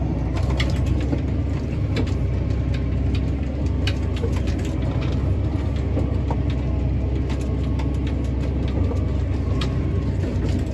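Tractor engine running steadily under load, pulling a speed disc, with irregular clicks and rattles from the implement as it works through cattails and grass.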